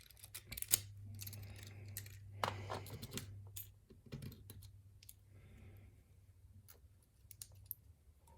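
Light, irregular metal clicks and scrapes as a pin-tumbler challenge lock is handled and taken apart with its key.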